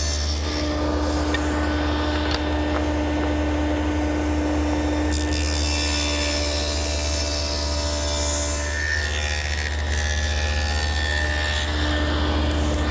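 Table saw running with a stacked dado head cutter, cutting a quarter-inch by half-inch rabbet along wooden door stiles and rails fed past a featherboard: a steady motor hum under the noise of the cut.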